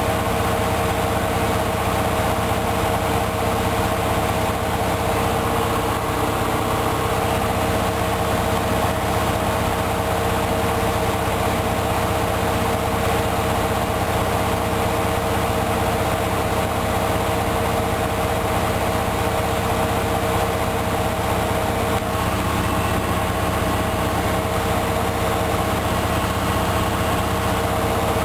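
Hoover Dynamic Wash front-loading washing machine in its final spin, with a steady motor whine and drum hum at high speed.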